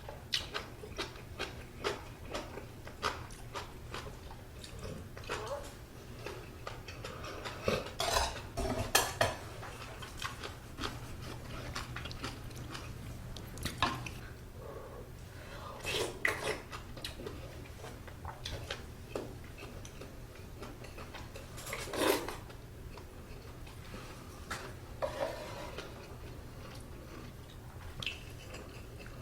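Eating utensils clinking and scraping against the dishes of budae-jjigae, irregular light clicks with a few louder knocks, amid the sounds of eating.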